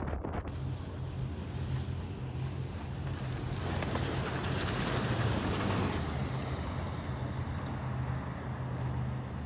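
A boat running on open water: rushing water and wind on the microphone over a steady low motor hum. The rush swells for a couple of seconds near the middle.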